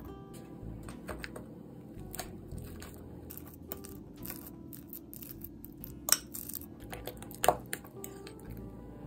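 Metal fork mashing banana in a glass bowl: irregular soft taps and clicks of the fork against the glass, with two sharper clinks a little past the middle.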